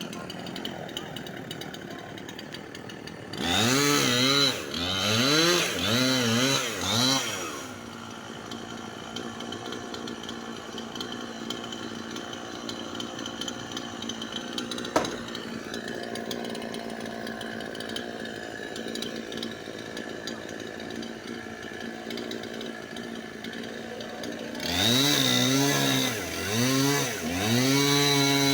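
Chainsaw idling steadily, then revved up in a few quick throttle surges about three and a half seconds in and again near the end. A single sharp click comes about halfway through.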